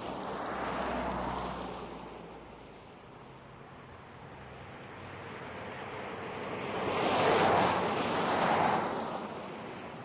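Ocean waves washing in: rushing noise that swells and fades twice, the second swell louder, about seven to nine seconds in.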